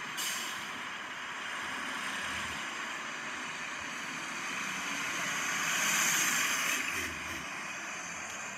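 Street traffic with a road vehicle passing, its tyre and engine noise swelling to its loudest about six seconds in and then fading.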